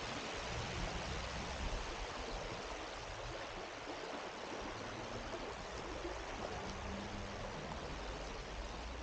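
Shallow river flowing over stones, a steady even rush of water.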